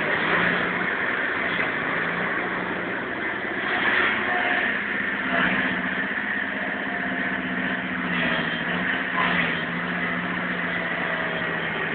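Hydraulic excavator's diesel engine running steadily as the machine digs snow with its bucket, the hum rising in brief surges a few times.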